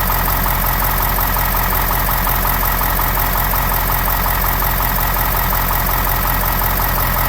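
A 2020 vehicle making a recurring mechanical noise: a steady low hum with fast, even ticking over it. The dealer called it nothing to worry about.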